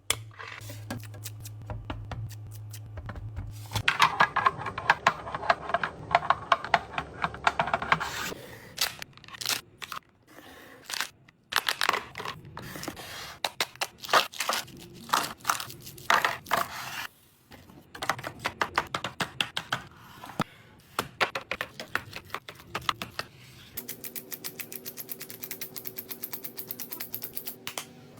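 Groceries being handled and stacked into a fridge: plastic packaging crinkling and rustling, with many quick clicks, taps and knocks of containers set down, in short edited sections.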